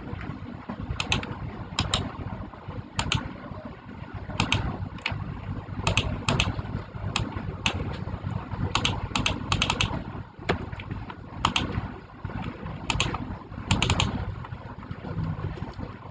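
Keys being pressed one at a time, a dozen or more separate clicks at irregular intervals, over a steady low rumble.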